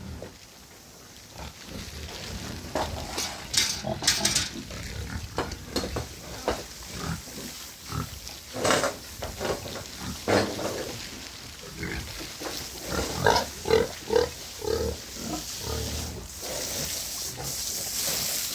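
Pigs giving irregular short grunts and squeals, with a quick run of grunts about three-quarters of the way through.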